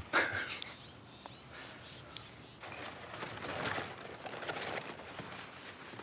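Soft rustling and crackling from a mist net and the vegetation around it while a small caught bird is handled, over outdoor background noise; the rustling grows louder about two and a half seconds in.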